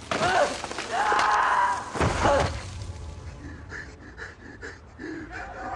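A man's loud, strained shouts, three cries in the first two and a half seconds, the last falling in pitch, followed by quick gasping breaths at about four a second. Near the end a sustained music chord comes in.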